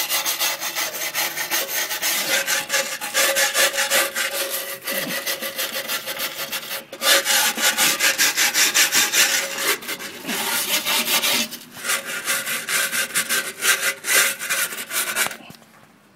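Wire brush scrubbing caked-on grass, dirt and rust off the underside of a Craftsman push mower's steel deck, in quick rasping strokes. It breaks off briefly about seven and twelve seconds in and stops just before the end.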